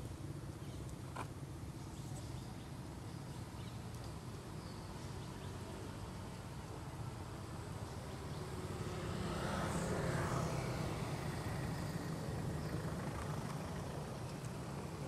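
Steady low rumble of motor traffic, swelling as a vehicle passes about nine to eleven seconds in, then fading.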